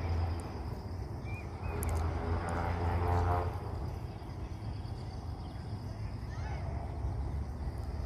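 Woodland ambience: a steady high insect hum and a few short bird chirps over a low steady rumble, with one louder drawn-out call of about a second near the middle.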